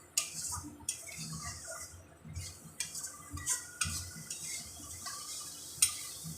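A spatula stirring and scraping spice paste as it fries in a pan, with irregular clicks against the pan over a light high hiss. A sharp clink sounds shortly before the end.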